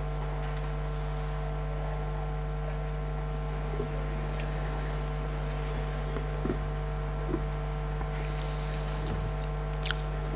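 Steady electrical mains hum picked up by the open microphone and sound system. A few faint knocks come about a third and two thirds of the way in, as the gooseneck microphone is handled.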